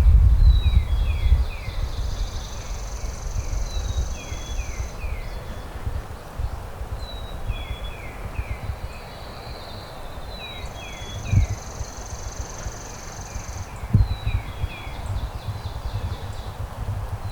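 Wind buffeting the microphone, strongest at the start, with small birds singing over it: repeated groups of short falling chirps and long high buzzy trills. There are two brief low thumps, about eleven and fourteen seconds in.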